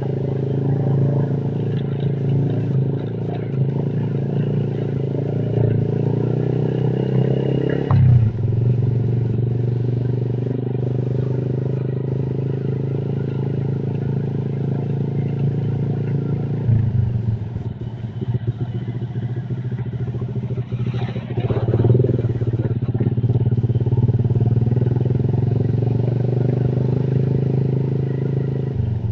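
Motorcycle engine running steadily while riding, with road noise. The engine note changes abruptly about 8 seconds in and again about 17 seconds in.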